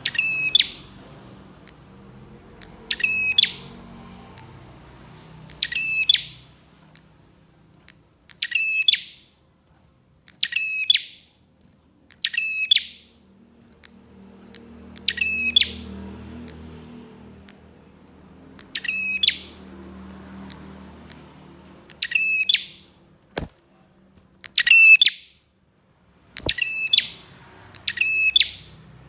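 Prinia (prenjak) giving short, sharp rattling calls, about a dozen, one every two to three seconds. Two sharp clicks sound in the second half.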